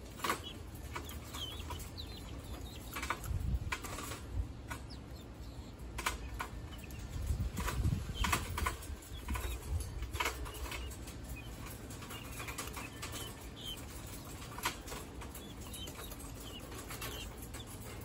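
Young guinea fowl pecking and scratching about in a wire cage: irregular sharp taps and scuffles, with a few faint high peeps and bursts of wing flutter.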